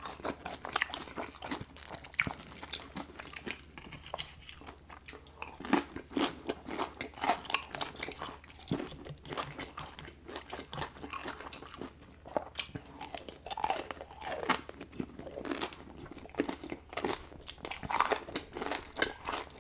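Close-miked chewing and crunching of breaded fried chicken fingers, with irregular crisp crunches throughout.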